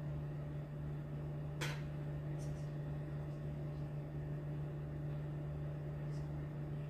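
Steady low hum of room tone, with a single soft click about a second and a half in.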